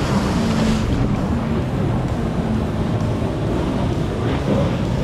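Brand-new jet ski's engine running steadily under way, still speed-restricted for its break-in, with water rushing past and heavy wind on the microphone.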